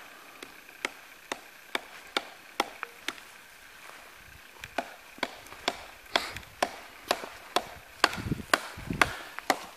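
Wood being chopped with a blade: sharp, even strokes about two a second, a short pause a little after three seconds in, then the chopping goes on, with a low rumble around eight to nine seconds in.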